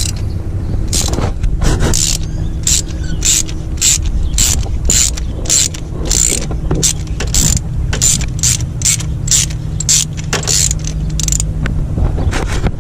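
Ratchet wrench clicking in short, quick strokes, about two a second, as it unscrews a loosened spark plug through a socket and extension.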